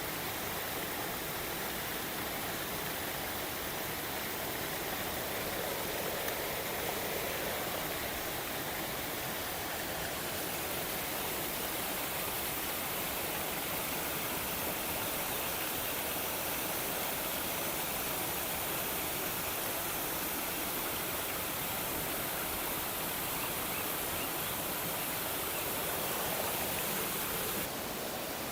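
Waterfall: a steady rush of falling water, with a slight shift in its sound about ten seconds in and a small drop near the end.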